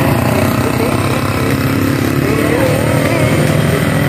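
Small motorcycle engines running as they ride past close by.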